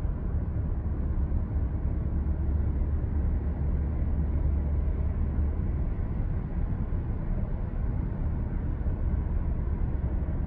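Steady road and engine rumble heard inside a moving car, heaviest in the deep low end, with no change in pitch.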